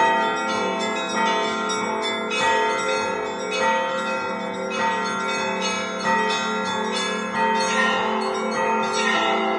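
Russian Orthodox church bells rung by a single bell-ringer (zvon): several bells of different pitch struck in a steady repeating pattern, about one and a half strikes a second, over the continuous low hum of a larger bell.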